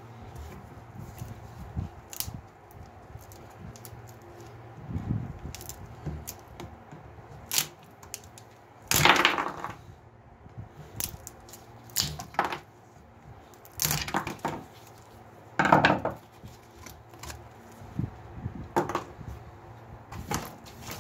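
Rotted wooden trowel handle being pried and split off its steel tang with a screwdriver in a bench vise: irregular cracking, scraping and splintering of old wood against steel, with a handful of sharp, louder knocks.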